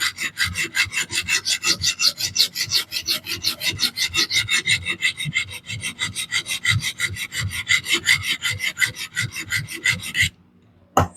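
Coarse diamond sharpening plate on a Xarilk Gen 2 fixed-angle sharpener rasping back and forth across a DC53 steel knife edge in quick, even strokes, about five a second, under heavy pressure while reprofiling the bevel. The strokes stop near the end, followed by a single sharp knock.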